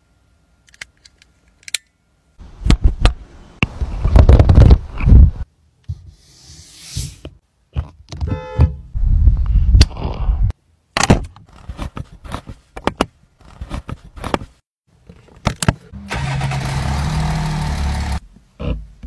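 A string of short vehicle sounds cut one after another: clicks and knocks, low rumbles, and a brief rapid mechanical rattle. Near the end, a Volkswagen Touareg's V6 TDI diesel engine runs steadily for about two seconds.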